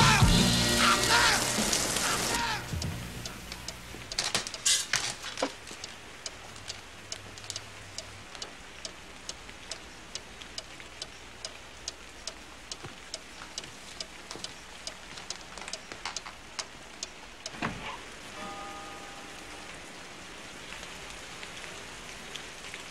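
Soundtrack music fades out in the first two seconds or so. Then steady rain, with a run of sharp clicking drips.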